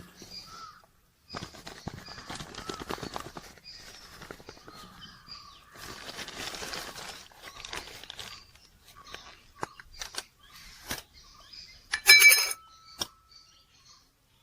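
Birds chirping in the background while dry ingredients are handled with rustling and scraping, likely maida flour being tipped out for the coating, with scattered light clicks and a brief loud sound near the end.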